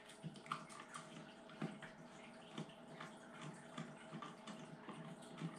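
Faint, irregular clicks and scrapes of a screwdriver turning the bottom action screw out of a break-barrel air rifle's wooden stock, over a faint steady hum.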